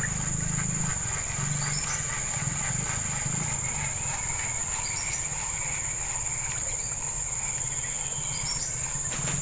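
Steady high-pitched insect trill with a low steady hum underneath and a few faint short rising chirps.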